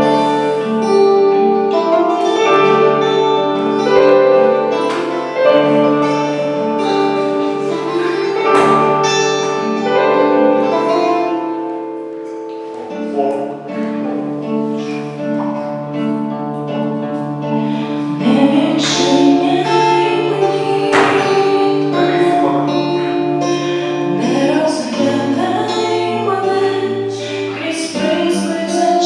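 Pop-ballad backing track playing its instrumental introduction: sustained keyboard chords under a melody line.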